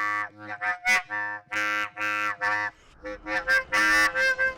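A hoedown tune played on blown PVC-pipe wind instruments: a quick run of short, reedy pitched notes, with a brief pause about three seconds in before the tune carries on.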